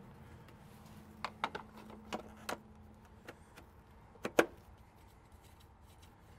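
Light clicks and knocks of a tractor's engine side cover being fitted back in place and its wing nuts turned down by hand. There are about seven small, separate clicks, the loudest a quick pair about four seconds in.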